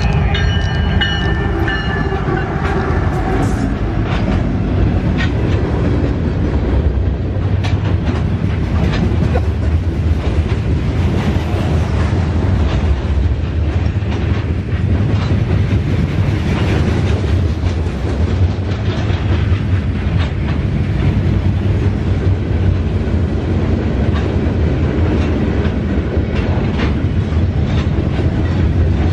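Norfolk Southern freight train passing close by: two GE diesel-electric locomotives go by as a horn chord trails off in the first three seconds, then a long line of steel open-top freight cars rolls past with a steady rumble and the clickety-clack of wheels over rail joints.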